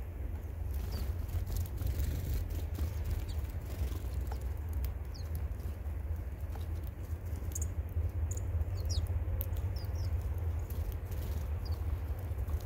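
Small birds at a feeder: short high chirps and scattered pecking and fluttering clicks, over a steady low rumble.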